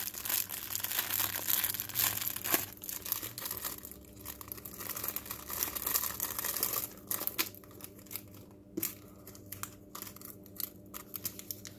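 Plastic parts packaging crinkling and rustling as it is handled and opened, easing off about seven seconds in into a few scattered light clicks and taps.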